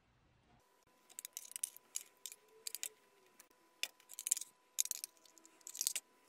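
A spoon and a ladle scraping and clinking against aluminium mess tins as cooked food is scooped out: a run of irregular short scrapes and clinks, with a few sharper clinks in the second half.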